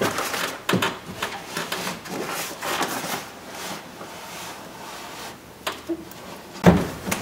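Rustling of a plastic door water shield being handled, with scattered clicks and light knocks from parts inside a car door, and one sharp knock near the end.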